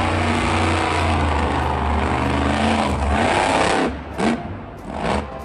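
Engine revving sound, loud and steady for about four seconds with a deep hum and gliding pitch, then cutting off, followed by a couple of short knocks near the end.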